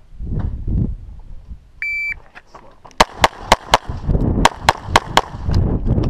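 An electronic shot timer beeps once at the start signal. About a second later pistol shots begin in rapid strings of about three to four shots a second, roughly ten shots in all.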